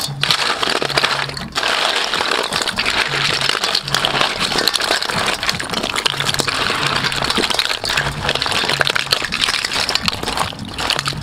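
Crab and snail shells clattering against each other and against a stainless steel bowl as they are tossed by hand with a crumbly seasoning: a dense, continuous rattle of clicks and crackles, with a brief pause about a second and a half in.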